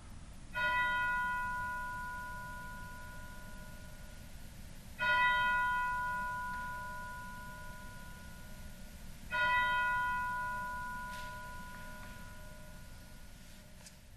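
A bell struck three times, about four and a half seconds apart, each stroke ringing on and slowly fading.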